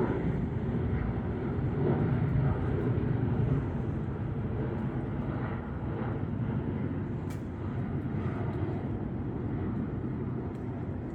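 Boeing 737-800 jet engines running, a steady low rumble that is loudest a few seconds in and then eases slightly.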